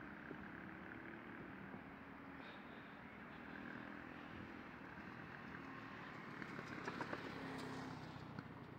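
Faint outdoor ambience with a distant motor vehicle running, and a few light clicks about seven seconds in.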